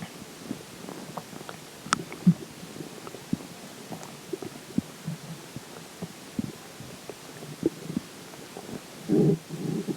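Human stomach gurgling with water in it: scattered small pops and bubbling gurgles, a sharp click about two seconds in, and a longer, louder gurgle near the end.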